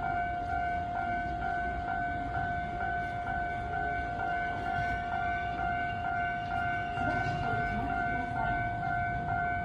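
Japanese railway level-crossing warning bell ringing in a steady, rapid, even repeat, over the low rumble of a train running past.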